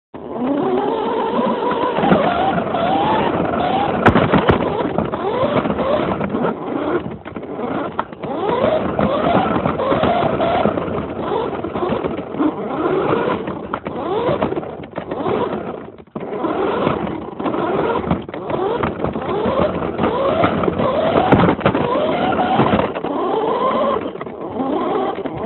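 Radio-controlled car driving, its motor whine rising in pitch again and again as it speeds up in short bursts, over a steady rolling noise from the wheels.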